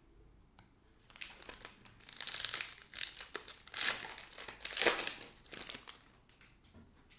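Foil trading-card pack wrapper crinkling as it is handled and torn open, in a run of crackly rustles over several seconds.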